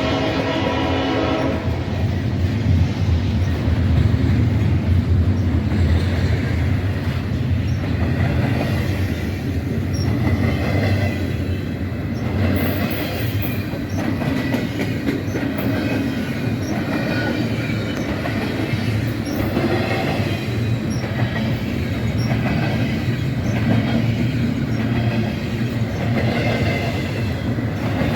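Locomotive air horn sounding a chord that cuts off about a second and a half in, followed by a passing train: a steady low rumble with a rhythmic clatter of wheels over rail joints.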